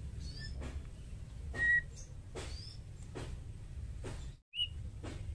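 Female white-rumped shama giving a few short, separate whistled calls; the loudest is a brief steady whistle a little under two seconds in. A low hum runs underneath.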